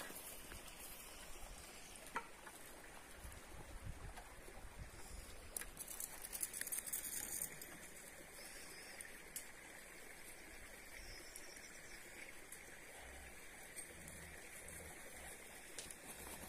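Quiet outdoor ambience: a faint steady hiss with scattered soft rustles and clicks, a little busier about a third of the way in.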